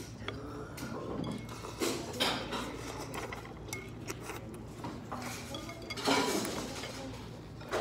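A spoon and chopsticks clinking and scraping against a soup bowl while eating pho, a few separate knocks with the loudest about six seconds in, along with sips of broth from the spoon.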